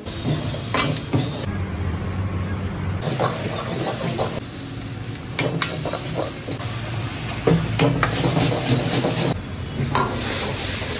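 Stir-frying in a steel wok over a gas flame: a metal ladle scrapes and clanks repeatedly against the wok while the food sizzles.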